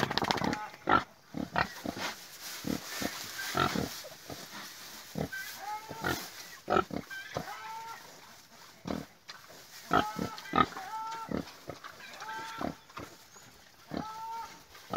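Pigs eating freshly cut pasture grass: irregular chewing and grunting, with short squeaky calls in small clusters now and then.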